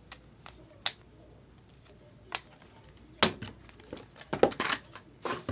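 A few separate sharp clicks and taps, then a short cluster of rustling and handling noises near the end.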